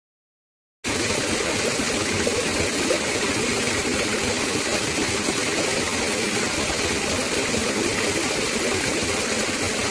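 Shallow stream water running and rippling over a rock, a steady rushing that starts after about a second of silence.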